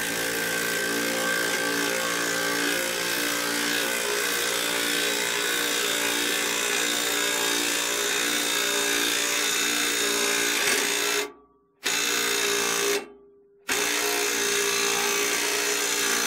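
Makita 18V brushless sub-compact 3/8-inch impact wrench on its high setting, hammering steadily under heavy load as it winds a scissor jack's screw to raise a truck. It stops about 11 seconds in, then restarts in two shorter runs as it nears the limit of what it can lift.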